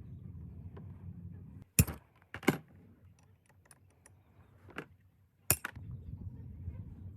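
A few sharp clicks and knocks, the loudest about two seconds in and another near the end, over a low steady background rumble that drops away between them.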